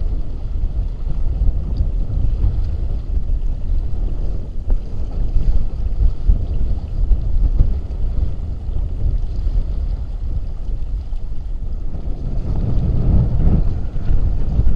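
Gusty wind buffeting the camera microphone while a Hobie Tandem Island sailing kayak runs under sail, with water rushing along the hull. The gusts grow stronger near the end.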